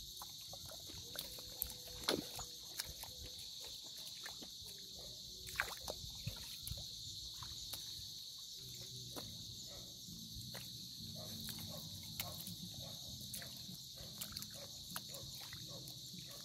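A steady high insect chorus over many small scattered clicks and squelches of footsteps in wet mud and shallow tidal pools. A faint low drone joins about halfway through.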